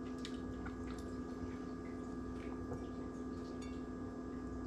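Faint soft, wet little clicks and drips as buttery chunks of cooked fish are picked by hand from a saucepan and pressed onto a pizza, over a steady background hum.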